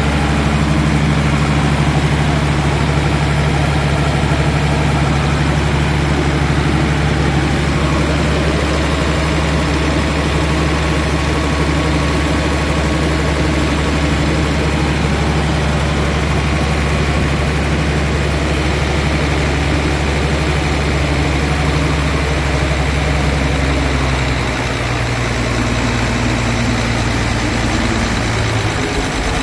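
Isuzu 6HH1 six-cylinder diesel engine running steadily, driving a screw vacuum pump under test. About 24 seconds in, the note drops lower, and near the end it starts to rise again.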